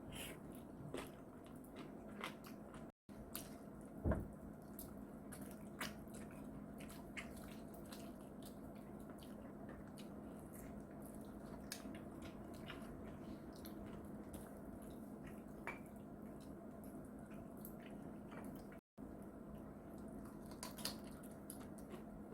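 Close-miked eating sounds: fried chicken being bitten and chewed, with scattered short crisp crunches and wet, sticky mouth sounds over a low steady hum. The sound cuts out briefly twice.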